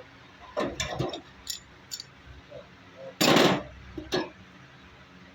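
Several clinks and knocks of hard tools being handled, with one louder burst of noise about three seconds in.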